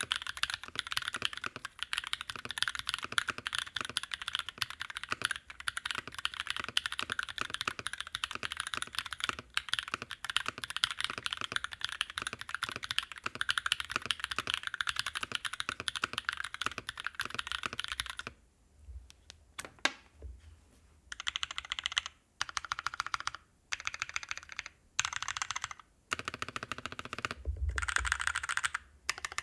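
Typing on a mechanical keyboard with long-pole tactile switches (aeboards Naevy v2) in an aeboards Constellation case, o-ring mounted on soft 50A Graveshift o-rings. Fast continuous typing for about eighteen seconds, then it breaks into short bursts of typing with brief pauses between them.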